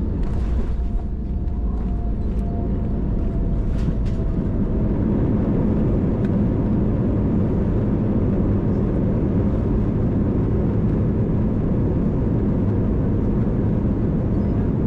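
Cabin noise of an Airbus A320 on its landing roll: a loud, steady rumble of the engines and wheels on the runway that grows a little louder over the first few seconds, with a few light rattles in the first four seconds.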